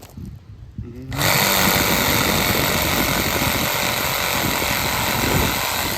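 Cordless reciprocating saw running steadily while sawing brush, starting up about a second in and cutting off just before the end.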